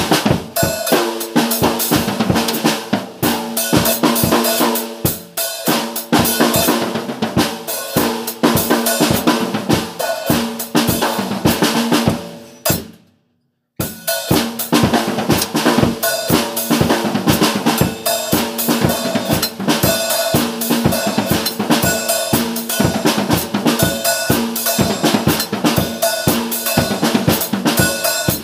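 Music with a driving drum-kit beat. It fades out about 12 seconds in, there is a moment of silence, and a second track with drums starts about 14 seconds in.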